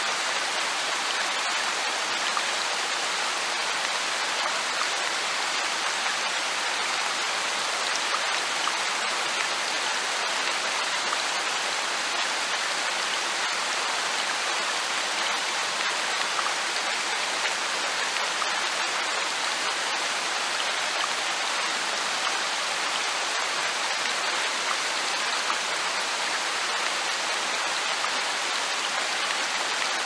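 Light rain falling steadily in a forest: an even hiss with scattered sharp ticks of single drops.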